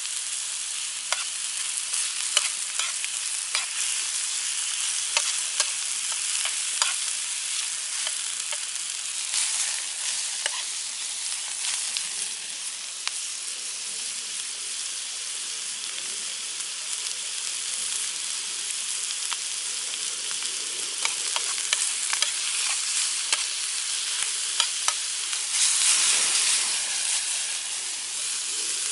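Food sizzling in a frying pan over a campfire, a steady hiss dotted with sharp crackles and clicks. The sizzle swells briefly near the end.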